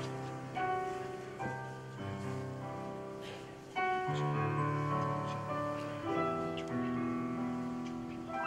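Piano playing slow, sustained chords on its own as song accompaniment, a new chord struck every second or so.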